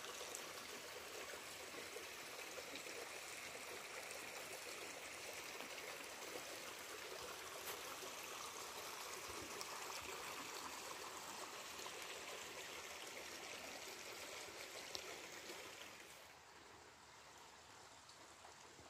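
Running water, a steady stream-like rush and trickle, which drops away near the end.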